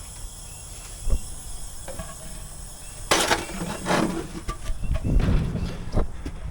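Knocks and clatter of metal parts being handled while a trailer air spring is removed, with a short loud noisy burst about three seconds in. Insects chirp steadily in the background.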